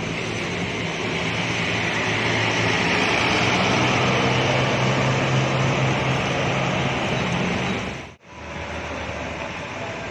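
Eka intercity bus's diesel engine passing close by and pulling away, growing to its loudest about halfway through, with a hiss of tyres on the rain-wet road. About eight seconds in the sound cuts off abruptly and a quieter steady engine rumble from another bus follows.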